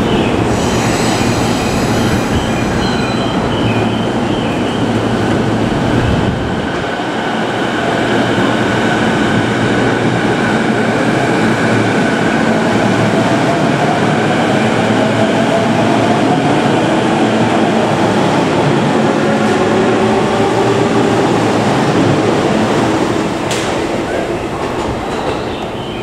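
JR East E233 series electric commuter train pulling out of the station, with its motor whine rising in pitch as it gathers speed over steady wheel and rail noise. A short high ringing tone sounds at the start.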